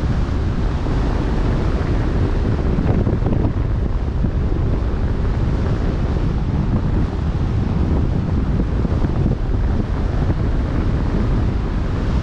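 Strong wind buffeting the microphone in a steady low rumble, over the wash of a choppy open sea.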